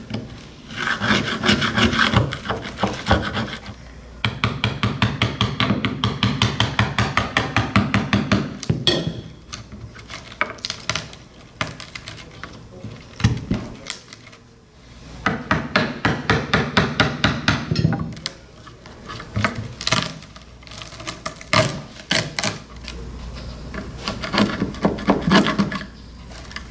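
A small screwdriver scraping and digging in the wooden spline channel of a chair back, prying out old glue, spline and rattan cane, in runs of rapid rasping strokes a few seconds long. A few sharper single knocks fall between the runs.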